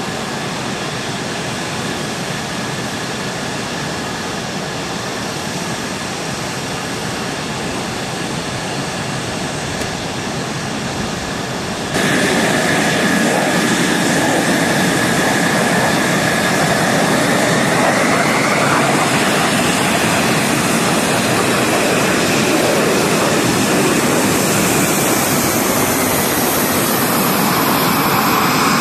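F-16 fighter jets' turbofan engines running on the flightline while the jets taxi: a steady jet rumble with a high whine. About twelve seconds in the sound steps up suddenly and gets louder, and later the whine climbs in pitch.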